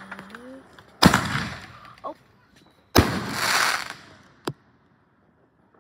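Fireworks going off: a sharp bang about a second in, then a second bang two seconds later followed by about a second of crackling, and a short crack after that.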